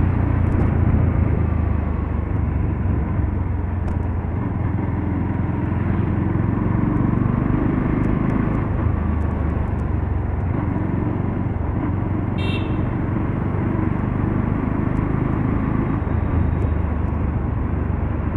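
Motorcycle engine running steadily while riding along the road, with a brief high-pitched tone about twelve seconds in.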